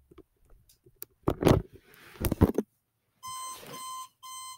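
Digital alarm clock going off: a high electronic beeping tone that starts about three seconds in, with a short break before it resumes. Before it, two loud bumps, handling noise.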